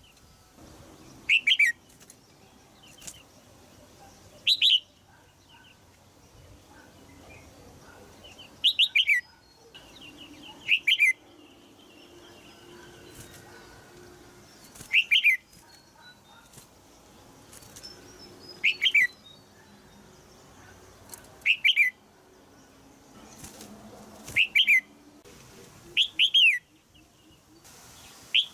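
Female red-whiskered bulbul giving short, sharp chirps, each sweeping down in pitch, repeated every two to four seconds and sometimes in quick pairs.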